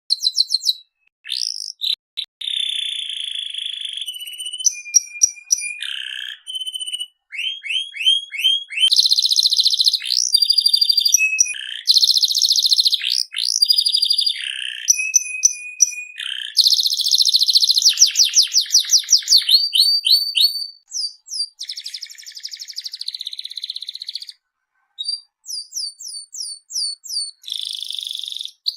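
Canary singing a long, varied song: fast trills and rolls, runs of repeated chirps and sliding whistled notes, changing phrase every second or two with brief pauses.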